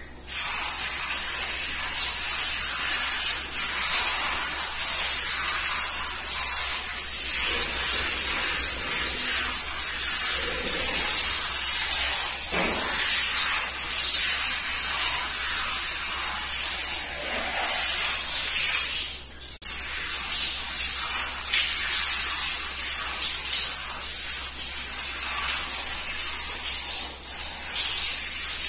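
Water hissing steadily from a handheld shower sprayer and splashing onto hair as shampoo is rinsed out. It dips briefly a little past the middle, then carries on.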